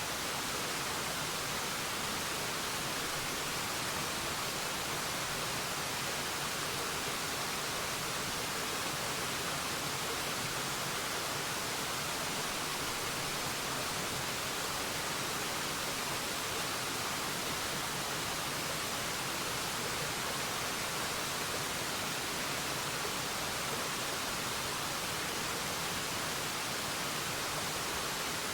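Waterfall: falling water making a steady, even rush of hiss, with no changes or separate events.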